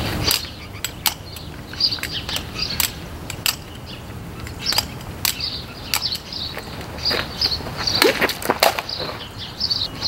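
Irregular sharp metallic clicks and clacks, typical of a butterfly knife's steel handles and latch snapping as it is flipped, with short high chirps in between.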